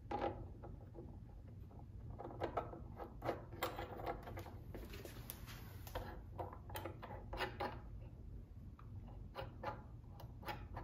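Faint, irregular clicks and taps of a small metal drawer knob and its screw being handled and test-fitted into the hole of a painted wooden drawer front.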